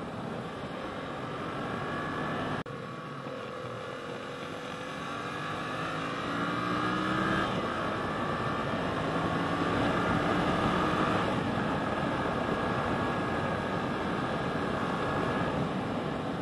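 Yamaha XSR700's 689 cc parallel-twin engine under way, its pitch rising twice as it pulls up through the revs with a gear change between, then holding steadier, under heavy wind rush. The sound breaks off abruptly once, about two and a half seconds in.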